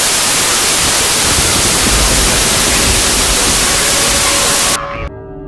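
Loud broadcast static, an even hiss with no tones, that cuts off abruptly near the end and gives way to a steady, quieter droning chord of held tones.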